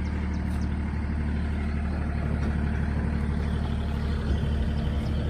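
Kubota L4018 tractor's diesel engine running steadily as the tractor climbs a steep dirt track under load.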